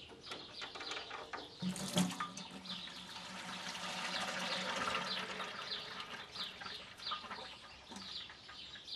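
Engine oil pouring out of the drain hole of a 1988 Allis-Chalmers 8070 tractor's engine into a bucket. A knock about two seconds in, then a steady pour that swells and then tapers off.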